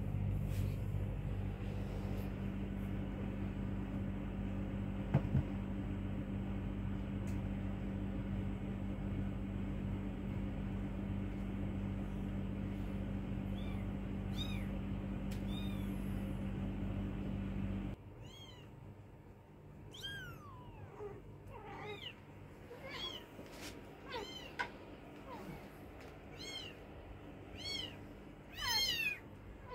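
A steady low hum for about the first eighteen seconds, with a few faint mews near its end. Then the hum cuts off, and young kittens mew over and over in short, high cries that bend up and fall away, growing louder toward the end.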